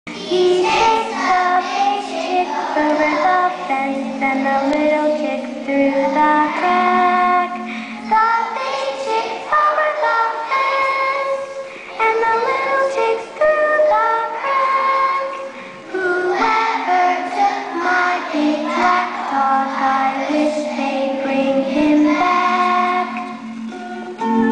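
Young children singing a song.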